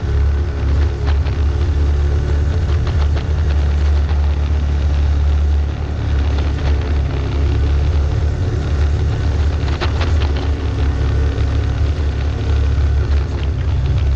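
Vehicle driving up a rocky dirt road: a steady low engine rumble, with scattered clicks and knocks from the rough surface, a cluster of them about ten seconds in.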